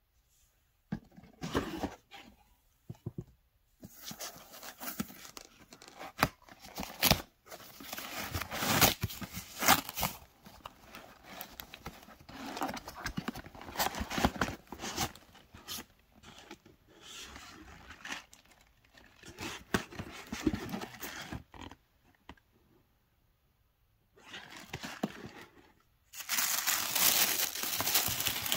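Packing material being handled by hand as a box is unpacked: bubble wrap and tissue paper rustling and crinkling in uneven spurts with short pauses. The rustling is loudest and most continuous near the end.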